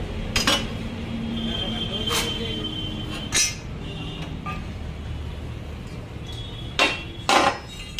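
Square steel tubes clinking and knocking against each other and the chop saw's metal base as they are set in the vise: about five sharp metallic clinks, two close together near the end.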